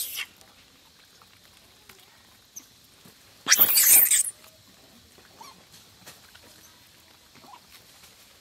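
Macaques squabbling over bananas. Faint small sounds of feeding run under a single loud, harsh burst lasting under a second, about three and a half seconds in, as one monkey lunges at another.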